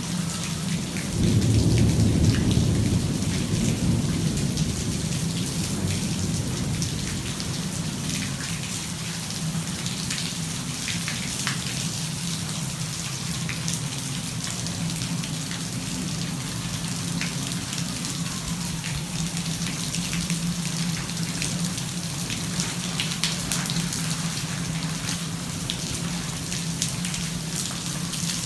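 Steady heavy rain with a roll of thunder. The thunder swells about a second in and rumbles low for a few seconds before fading back under the rain.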